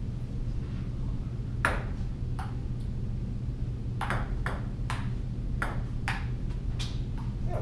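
Table tennis ball clicking off paddles and table: a couple of hits about two seconds in, then a quick rally from about four seconds in, roughly two hits a second, over a steady low hum.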